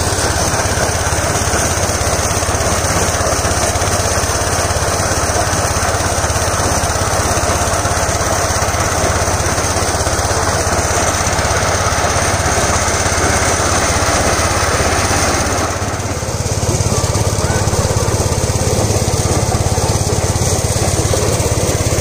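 A small engine running steadily, with a short dip in level about three-quarters of the way through before it picks up again.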